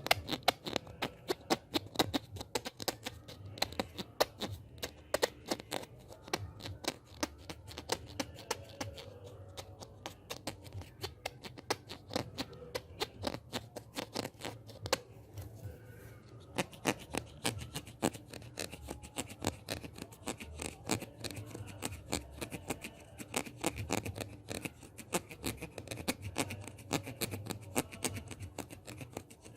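ASMR hand sounds: a continuous stream of quick, crisp clicks and scratches, several a second, from hands and fingers worked close to the microphone.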